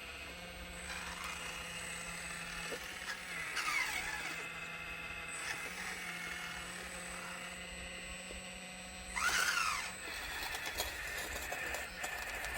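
Scale radio-controlled Volvo 360L excavator model working: a steady low electric hum with whines that sweep up and down in pitch, one about four seconds in and a louder one near nine seconds.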